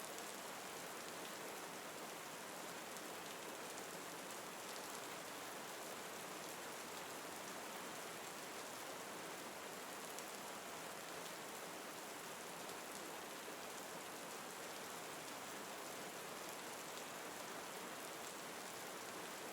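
Steady, soft rain falling, an even hiss of raindrops on a surface.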